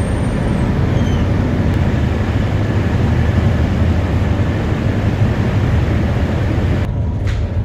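Steady low rumble of a running vehicle engine. About seven seconds in, music with a regular beat takes over.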